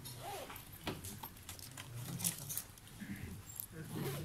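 Faint room noise: scattered small clicks and knocks with low, murmured voice fragments.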